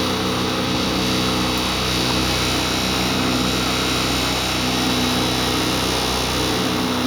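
Small outboard kicker motor running steadily in forward gear.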